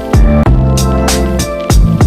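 Background music with a steady drum beat, bass and guitar.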